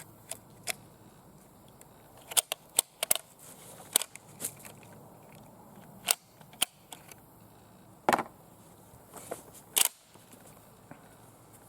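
Sharp metallic clicks and clacks at irregular intervals, about a dozen in all, as rifle cartridges are loaded into the Swiss K31's magazine and the rifle is handled.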